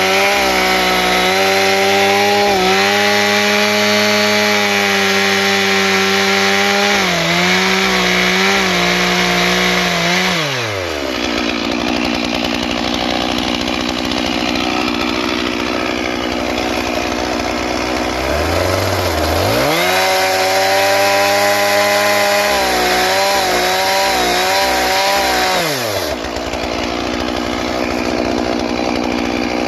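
Stihl MS 461 two-stroke chainsaw at full throttle bucking logs, its pitch wavering under load. It drops to idle about a third of the way through, revs up again for a second cut about two-thirds in, and falls back to idle near the end.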